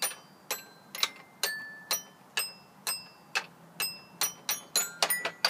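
A child's xylophone struck one bar at a time, about fifteen notes of uneven pitch at an irregular pace, each a sharp tap with a brief ring, coming faster near the end.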